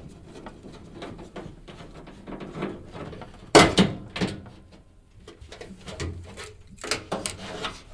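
Screwdriver clicking against screws on a washing machine's metal cabinet, then knocks and rattles as the sheet-metal front panel is pulled off. The loudest knock comes about three and a half seconds in.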